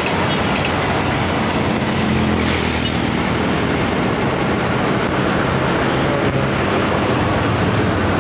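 Diesel train running: a steady rumble and rushing noise with a low, even engine drone underneath.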